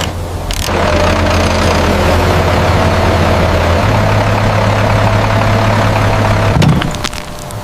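Heavy construction machinery's diesel engine running steadily at a low idle, its pitch stepping up a little about halfway through. Near the end it stops with a short thud and a few clicks.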